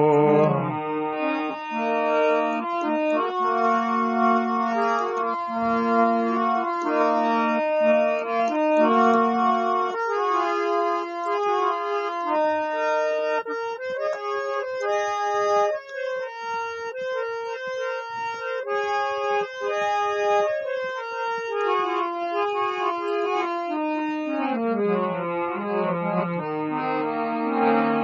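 Hand-pumped harmonium playing an instrumental passage alone: a reedy melody that steps up and down over held lower notes, sustained without a break.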